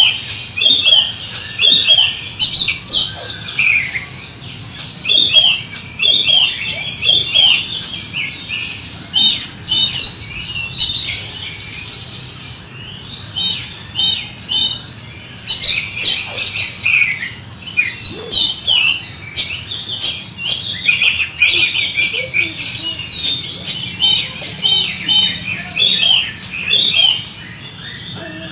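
Oriental magpie-robin (kacer) singing a fast run of harsh, varied chirps and churring notes, thinning out briefly around the middle before picking up again.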